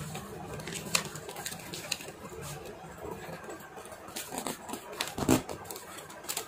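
A sheet of paper rustling and crinkling as it is folded and creased by hand, with scattered sharp crackles; the loudest comes about five seconds in.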